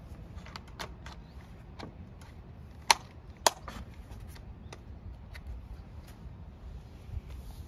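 The plastic engine cover of a STIHL FS250 brush cutter being pressed and fitted back on by hand: a scatter of small plastic clicks and knocks, the loudest two sharp clicks about half a second apart, about three seconds in.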